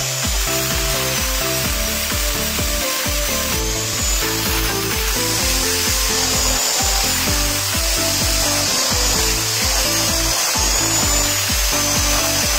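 Background music with a steady beat, over the steady hiss of a power grinding wheel cutting into a steel wrench.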